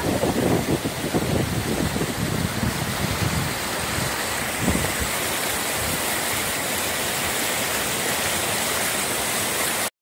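A rocky mountain stream rushing over boulders in a steady, even wash of water noise. For the first few seconds wind gusts buffet the microphone with uneven low rumbles.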